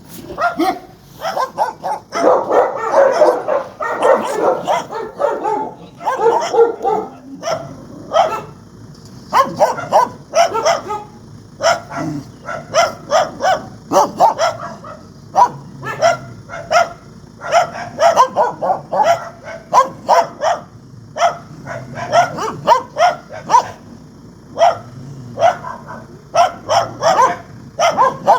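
Dogs barking angrily, many short sharp barks in quick runs. For a few seconds near the start, several barks overlap densely.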